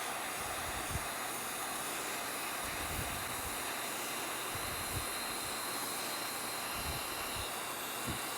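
Hand-held hot-air welder (heat gun) blowing a steady hiss while heat-welding thermoplastic roofing membrane flashing, with a few faint low knocks.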